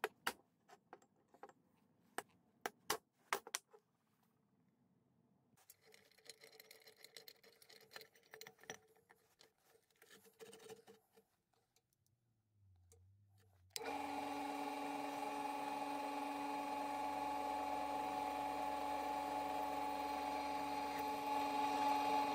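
A hammer strikes a centre punch on a metal tube, several sharp knocks in the first few seconds, followed by quieter scraping and rattling. About fourteen seconds in, a bench drill press starts and runs with a steady hum while its bit drills into the metal tube.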